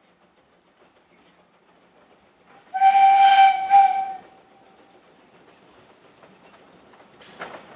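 Small narrow-gauge steam locomotive sounding its steam whistle: one shrill blast of about a second and a half, dipping briefly just before it ends, as the train approaches.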